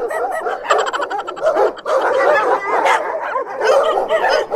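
Dogs barking and yapping back and forth without a break, cartoon dog sound effects.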